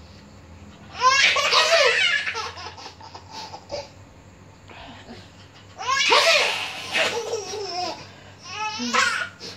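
A small child laughing in three bouts of repeated high-pitched laughs, the first about a second in, the second around the middle and a short one near the end.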